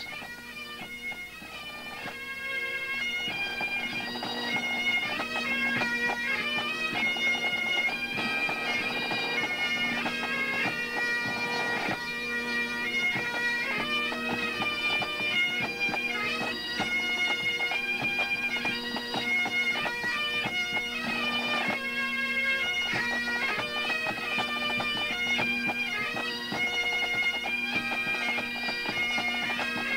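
A pipe band's bagpipes playing a march tune over a steady drone, fading up over the first few seconds and then holding at a steady level.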